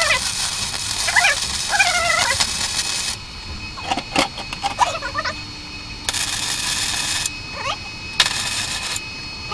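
Flux-core MIG welder arc crackling in three bursts that start and stop abruptly, the first about three seconds long. A cat meows several times through and between the welds.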